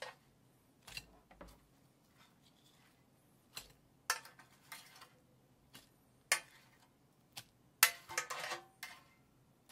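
Kimchi pancakes being laid one by one onto a ceramic plate: scattered light clicks and taps against the plate, with a quick cluster of taps and scrapes near the end.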